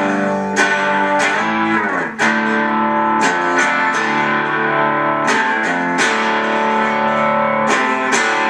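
Electric guitar strummed through a Boss Katana Mini amplifier on its clean channel, mids fully up, with a little bite to the tone. Chords are struck about once a second and left ringing between strokes.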